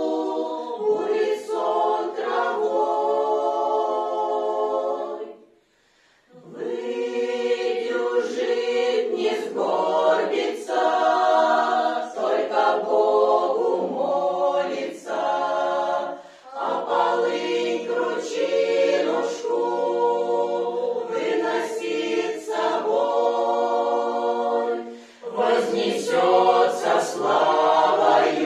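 Mixed choir of women's and men's voices singing a Russian song a cappella in harmony, with a short breath pause between phrases about six seconds in.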